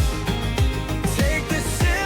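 Pop song backing music with a steady kick-drum beat and sustained instrumental chords, between sung lines.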